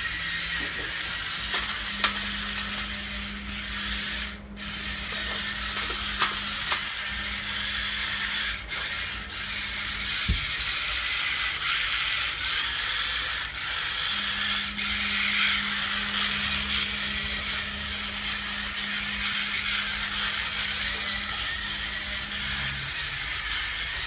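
Small plastic-tracked RC tank chassis driving: its little electric gear motors whine and the tracks clatter. The steady motor hum runs for about eight seconds, stops, then runs again for about nine seconds, with a few sharp clicks along the way.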